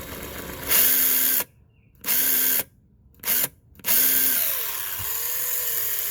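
A Worx 20-volt cordless drill run free off load in four trigger pulls. The motor spins up and stops each time. The last run is the longest, about two seconds, and its pitch shifts as the trigger is eased.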